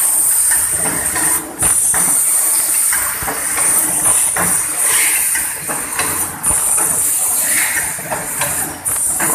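Automatic rotary standing-pouch packing machine running: a steady high hiss with repeated mechanical clunks and clacks as its pouch grippers index round.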